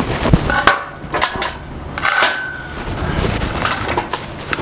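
Metal clanks and clinks as a steel engine hoist is handled, with several sharp knocks, the loudest near the start. A short metallic ring sounds about two seconds in.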